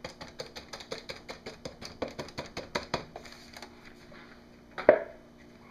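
Quick run of light clicking taps, about six a second for three seconds or so, as a utensil works soap batter into a wooden loaf mould, then one louder knock near the end.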